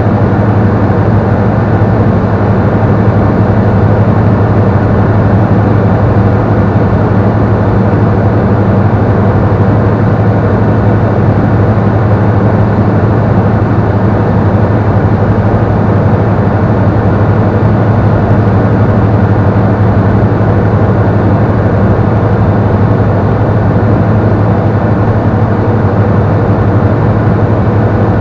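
Robin CDI light aircraft's four-cylinder turbodiesel engine and propeller running steadily in cruise, a constant low drone heard inside the cockpit.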